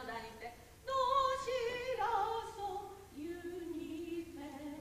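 A woman singing a slow melody in long held notes with some vibrato, pausing briefly just before a second in.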